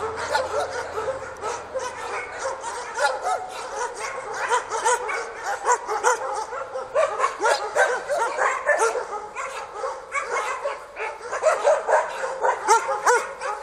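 A chorus of many kennel dogs barking, yipping and whining over one another without a break, set off by a truck leaving the yard.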